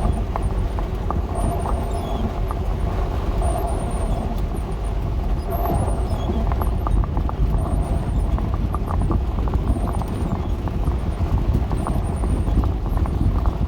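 Dodge A108 van driving slowly over a rough, wet dirt road: a steady low engine and road rumble with frequent small knocks and rattles from the body and the gravel under the tyres.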